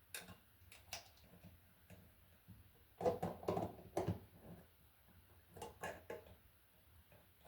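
Scattered clicks and knocks of hand tools and stiff copper electrical wire being handled while a wire loop is formed for a terminal screw, with a cluster of louder knocks about three seconds in.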